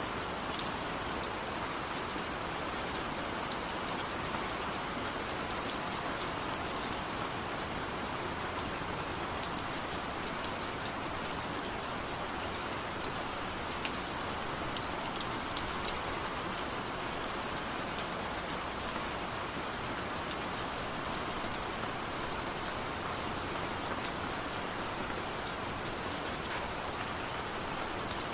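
Steady rainfall, an even hiss of rain with scattered sharper drop ticks close by.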